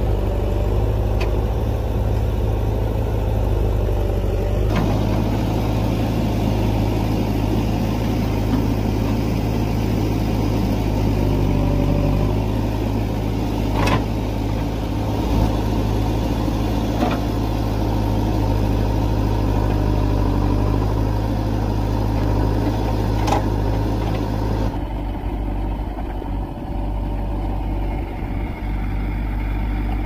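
Diesel engine of a JCB 3DX backhoe loader running steadily as it works, with a few sharp knocks in the middle. The engine sound changes abruptly about five seconds in and again near the end.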